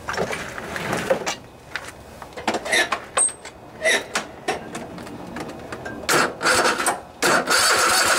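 Electric starter cranking a Kohler Courage 26 hp twin-cylinder engine over without it starting, in two bursts beginning about six seconds in, the second longer. This is a test of whether the vacuum-driven fuel pump delivers fuel through its disconnected outlet line. Before the cranking, scattered clicks and knocks.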